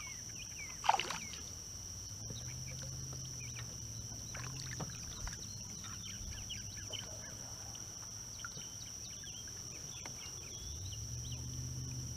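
Steady high-pitched insect drone with scattered small bird chirps. A short sharp sound stands out about a second in, and a low hum swells and fades a couple of times.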